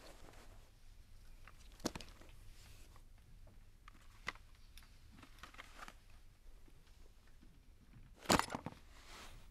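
Quiet rustling and handling of knitted clothes and objects in an old metal suitcase, with a few light knocks, then a louder clatter near the end.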